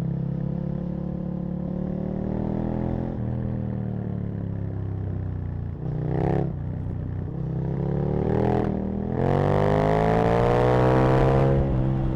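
Aprilia RSV Mille's V-twin engine under way, revs climbing and falling back at each upshift. The hardest and loudest acceleration comes in the last few seconds, the pitch rising steeply before dropping near the end.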